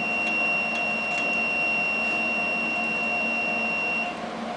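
A steady, high-pitched electronic beep that cuts off near the end, over a steady droning hum.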